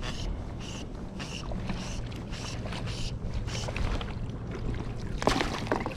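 Fly reel clicking in quick even bursts, about one to two a second, as line is cranked in on a hooked trout, over steady wind noise. A louder noisy burst comes about five seconds in.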